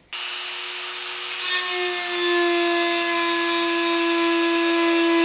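Hand-held rotary tool with a small grinding-stone bit running at speed, grinding into a flanged bronze gearbox bush to deepen a notch that was cut too shallow. It starts at once and keeps a steady high whine over the hiss of the bit on the bronze.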